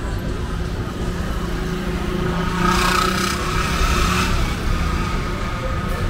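City street traffic: a motor vehicle running close by, with a louder passing hiss and engine hum about two and a half to four seconds in, over a steady low rumble.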